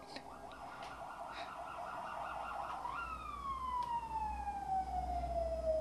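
A siren sounding in the background, with a low rumble underneath. It first warbles, then about three seconds in jumps up and falls in one long, slow, descending wail.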